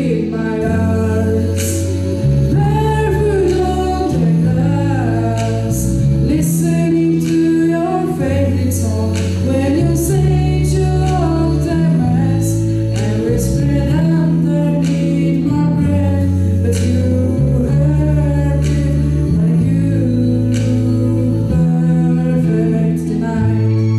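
A teenage boy singing a song into a handheld microphone, his voice held on long notes, over backing music of sustained low chords that change every second or two.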